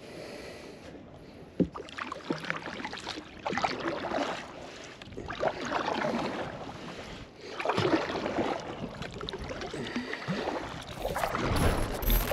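Kayak paddle strokes, with a swish of water about every two seconds. A loud low thump comes near the end.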